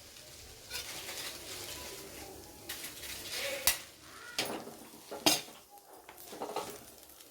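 Noodles being stirred and tossed with spoons in a cooking pan, scraping against the pan, with three sharp clinks of spoon on metal about halfway through and later.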